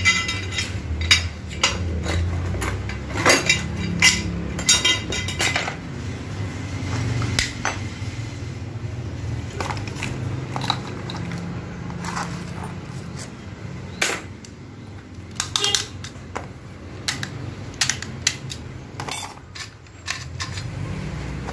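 Metal transmission parts and hand tools clinking and clattering as an automatic transmission is taken apart: many separate sharp metallic clinks over a low steady hum.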